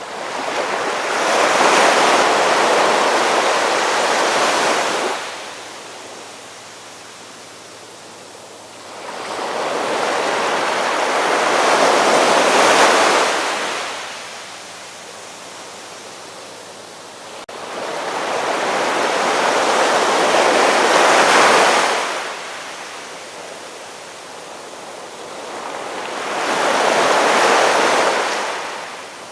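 Ocean surf: four waves washing in about eight seconds apart, each swelling and fading over four to five seconds, with a softer steady hiss between them.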